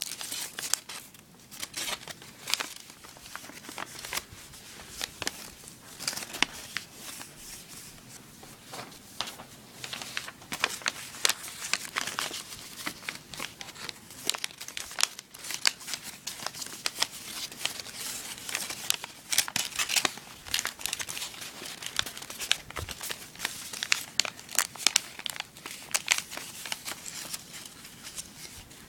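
Sheet of origami paper being folded and creased by hand: irregular crinkling and rustling with sharp crackles as folds are pressed.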